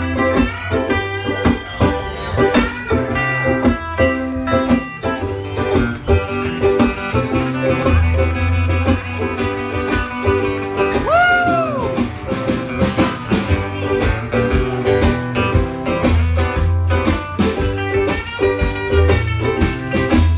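Live band music with strummed acoustic guitar and ukulele, upright bass and drums keeping a steady beat, with a sliding note about halfway through.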